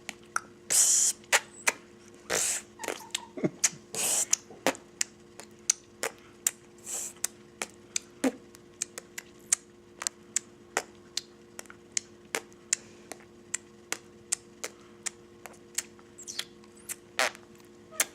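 A young girl making made-up mouth noises: a long run of sharp tongue clicks and lip pops, a few a second, with several short hisses among them in the first seven seconds or so.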